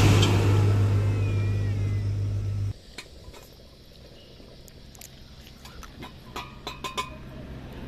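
A tractor pulling a hay-laden trailer passes close by, its engine a loud, steady low drone that slowly fades. It cuts off suddenly a little under three seconds in, leaving a much quieter stretch with a few faint scattered clicks.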